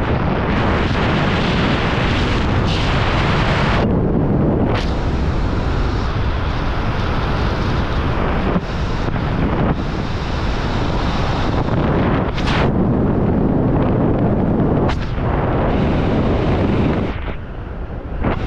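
Wind buffeting the camera microphone during a parachute descent under canopy: a loud, steady rush with brief lulls every few seconds.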